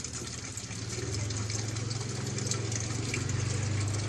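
Samsung WA80U3 top-load washing machine running while water pours into the tub, with a steady low electrical hum that grows louder about a second in.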